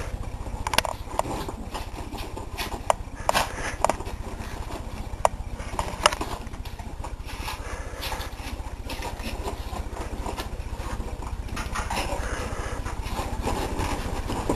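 A dog moving around on a couch: scattered sharp thumps and clicks from its paws on the cushions, most of them in the first six seconds, with rustling between. A steady low hum runs underneath throughout.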